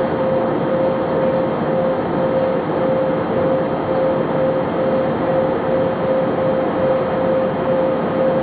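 Cabin noise of an Airbus A319 in its climb after takeoff: the steady sound of the jet engines and the airflow. A steady droning tone runs through it.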